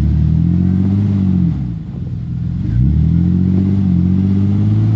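A Jeep Wrangler's engine revving under load as it crawls up a rock ledge. It revs up and holds, drops off about a second and a half in, then revs up again and holds.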